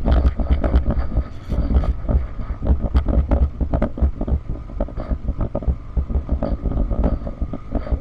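Motorcycle going over a rough road of loose, broken stones: the engine runs under a constant clatter of knocks and jolts, over a heavy low rumble.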